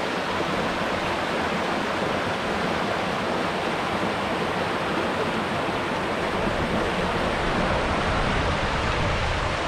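Water rushing steadily through a concrete culvert outlet and churning white around a net held in the current.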